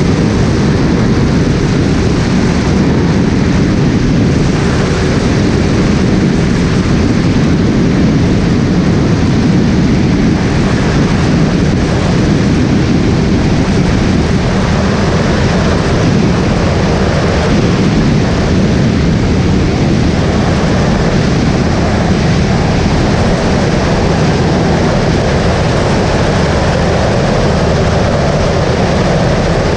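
Skyleader 500 light aircraft's engine and propeller running steadily in flight, mixed with the rush of airflow: a loud, constant drone.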